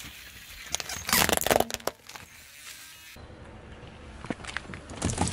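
Car tyre rolling onto a plush toy dog, crunching and crackling for about a second, starting about a second in. Near the end the tyre presses onto drink cartons, with a few clicks and then a thud as they give way.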